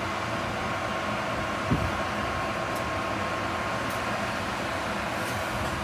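Amtrak ACS-64 electric locomotive standing powered up, its cooling blowers running: a steady whirring rush with a thin high whine. A dull thump just under two seconds in.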